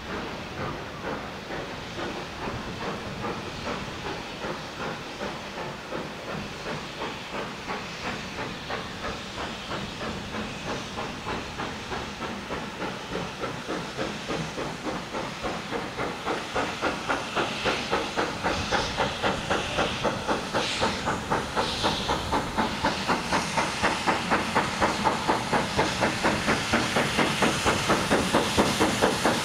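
GWR King class steam locomotive No. 6023 King Edward II working toward the listener. Its exhaust beats form an even, quick rhythm that grows steadily louder, with steam hissing from the cylinders.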